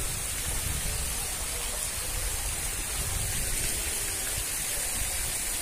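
Steady rushing and hissing of falling, spraying water, with a low rumble underneath.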